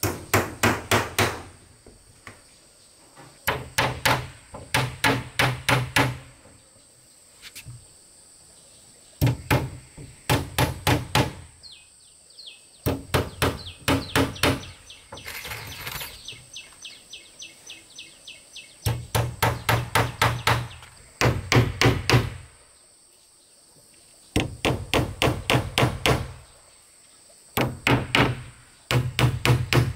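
Hammer driving nails into wooden floor planks, in quick runs of several blows with pauses between runs. A steady high insect drone carries on underneath.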